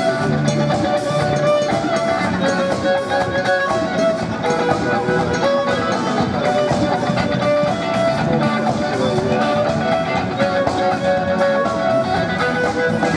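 Live band playing: electric guitar and a drum kit with cymbals keeping a steady beat, under long held melody notes that fit an electric violin.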